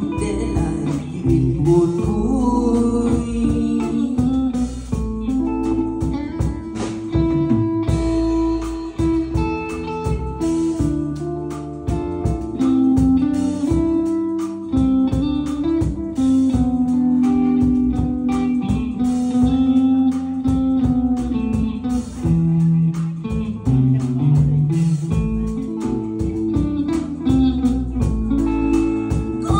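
Live band playing an instrumental break in a bolero song: electric guitar carrying the melody over bass guitar and a drum kit keeping a steady beat, with no singing.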